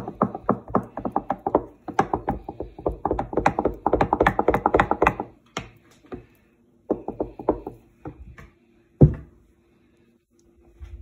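Wooden spoon beating thin crêpe batter in a glass bowl: a fast run of clacks as the spoon knocks the sides of the bowl, which stops about five seconds in. A short second run of stirring follows, then one loud thud about nine seconds in.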